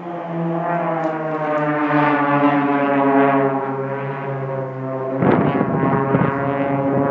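Aircraft flying past at an air show: a loud engine drone whose pitch slowly falls as it passes, joined about five seconds in by a rough crackling rumble.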